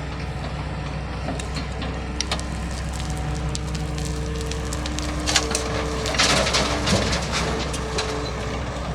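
Excavator's diesel engine running steadily, with scattered cracking and a burst of crunching and splintering about six to seven seconds in, as material is broken or crushed.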